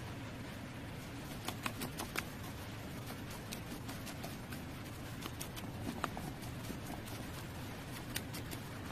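Wooden spoon stirring a thick coconut, sugar and egg-white mixture in a large stainless steel bowl, with scattered sharp clicks and taps where it knocks against the bowl, several in quick succession about a second and a half in. A steady low hum runs underneath.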